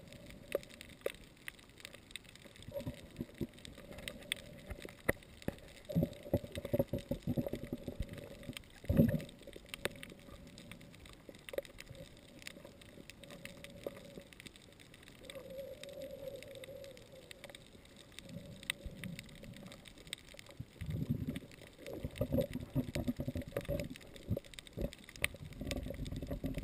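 Muffled underwater sound of moving water, heard through a submerged camera's waterproof housing. It comes in bouts, loudest about nine seconds in and again over the last six seconds, with scattered faint clicks throughout.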